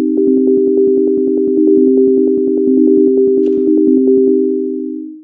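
Sonic Pi's :beep synth, a plain sine tone, cycling through MIDI notes 60, 63 and 67 (C, E-flat and G, a C minor arpeggio) about ten notes a second. A little after four seconds in the fast notes stop and fade out, and a single note starts again right at the end.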